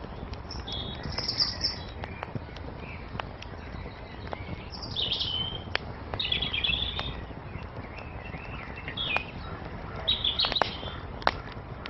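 Wood fire crackling, with sharp pops and snaps at uneven intervals over a steady low rumble, the loudest pop near the end. Short bird chirps come in several times over it.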